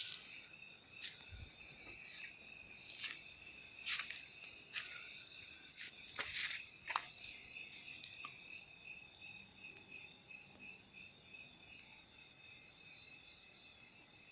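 Night insects, crickets among them, chirring in a steady high-pitched chorus. A few short, light crackles break in, most of them between about 6 and 7 seconds in.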